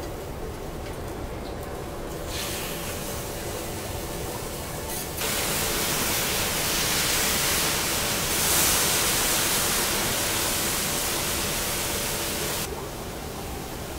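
Water squirted onto a hot teppanyaki griddle, hissing and sizzling as it boils off into steam to cook a lobster. A softer hiss starts about two seconds in, grows much louder about five seconds in, and cuts off suddenly near the end.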